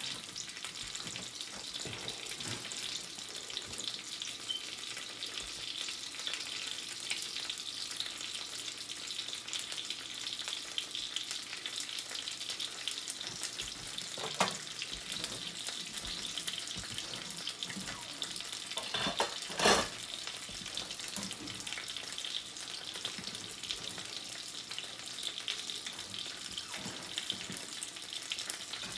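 Birria taco frying in grease in a nonstick skillet: a steady sizzle with fine crackling, and two louder knocks about halfway through and two-thirds of the way in.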